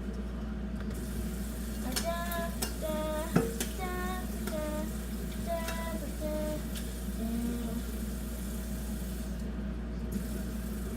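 A high voice singing a short run of notes, each held briefly at a different pitch, over a steady low background hum, with one sharp click partway through.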